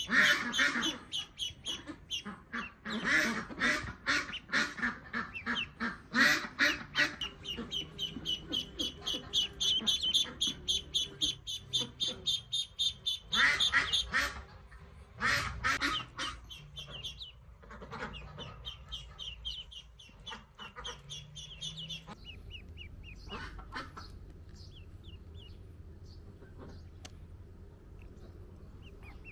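Day-old ducklings peeping in rapid runs of high calls. The calls are loud for much of the time, then turn fainter and sparser about three-quarters of the way through.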